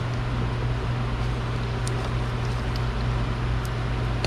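Steady mechanical hum, like a fan or blower running, with a few faint light clicks of a hand tool working a bolt loose.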